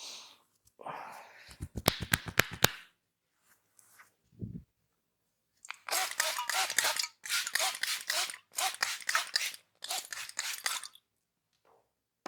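Barber's hands on a head during an oil head massage: a scratchy rub, then a quick run of about eight sharp cracks, a dull thump, and four bursts of dense rubbing on the hair and scalp, each about a second long.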